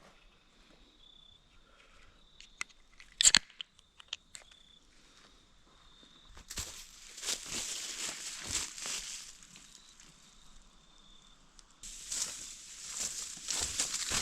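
Footsteps crunching through dry fallen autumn leaves, in two stretches in the second half. Before them comes a single sharp crack about three seconds in, the loudest sound.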